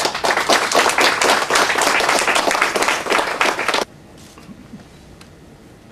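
Audience applauding, a dense run of many hands clapping that cuts off abruptly about four seconds in.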